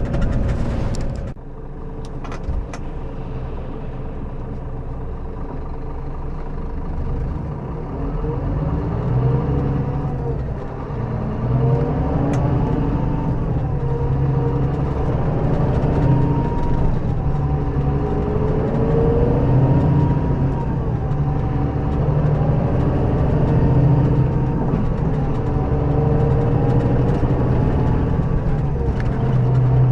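Scania K400B coach's diesel engine running low, then pulling away from a standstill and accelerating through the gears. Its pitch climbs and drops back at each gear change, every few seconds.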